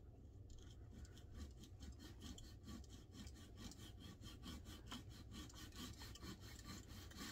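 Coping saw cutting a slot down the centre of a balsa crankbait body held in a vise, in quick, even back-and-forth strokes that start about half a second in. The wood is soft, so the rasping is faint.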